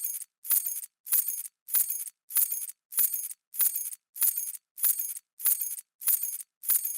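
A bunch of metal keys dropped and jingling as they land, the same short jangle repeated about every half second or so, each one cut off by a brief silence: a looped key-drop sound effect.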